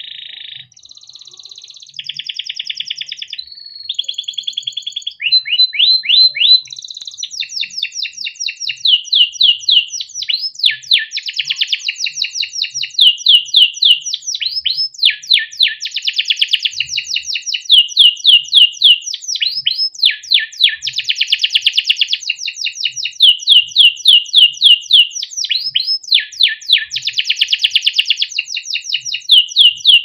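Orange male canary singing a long, unbroken song: fast trills of quick down-slurred notes alternating with buzzy rolls and chirps. It is softer for the first few seconds, then loud.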